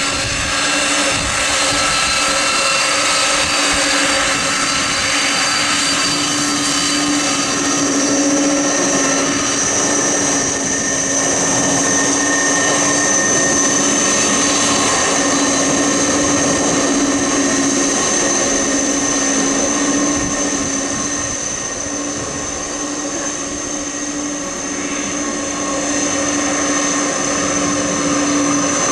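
Airbus A310's twin jet engines running at low taxi power as the airliner rolls and turns on the ground: a steady high whine over a lower hum and an even rush of noise.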